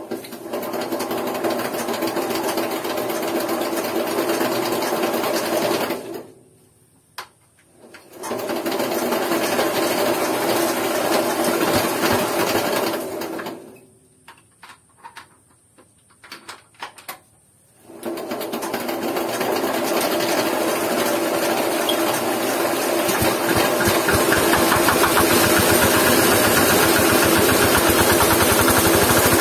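Jiangdong 8 hp single-cylinder diesel engine being started. It clatters for about six seconds and stops, clatters again for about five seconds and stops, then catches about eighteen seconds in and keeps running, growing slightly louder.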